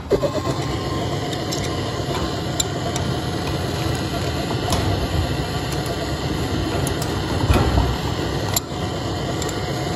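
Gas blowtorch flame running steadily, heating a soldered copper tee to sweat it off the pipes, with a few light clicks.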